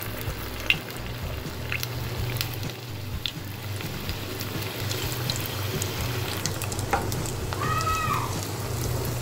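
Spring rolls deep-frying in hot oil, a steady sizzle with small crackles as fresh rolls are added, over a low steady hum. A short tone that rises and falls comes about eight seconds in.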